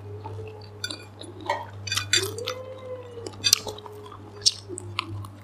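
A person chewing, with sharp clicks and clinks of utensils and a plate. A pet whines twice in drawn-out, level calls, about two seconds in and again near four seconds, over a steady low electrical hum.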